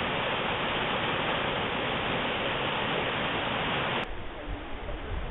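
Rushing water: a steady, loud rush that cuts off about four seconds in to a quieter hiss with low rumbles.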